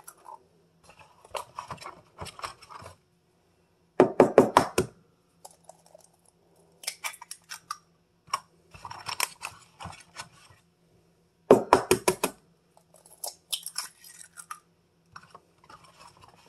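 Eggs being cracked into a glass mixing bowl. Twice, about four seconds in and again near twelve, there is a cluster of a few quick sharp taps as a shell is knocked. In between come quieter crackles of shells being broken open and pulled apart.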